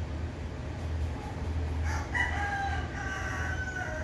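A rooster crows once, starting about halfway through and ending in a long, drawn-out note, over a steady low hum.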